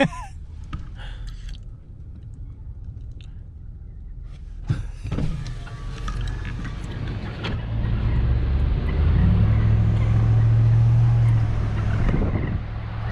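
Truck engine and road noise: a hush for the first few seconds, then a sudden hiss about five seconds in, and the engine's low hum builds and grows louder as the truck gets moving.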